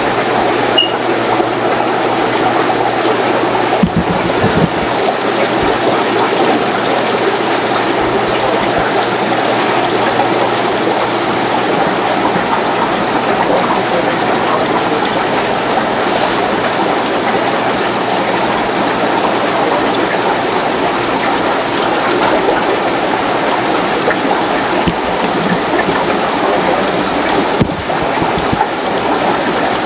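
Steady rushing and bubbling of aquarium aeration: air-driven sponge filters and air lines bubbling in a row of fish tanks.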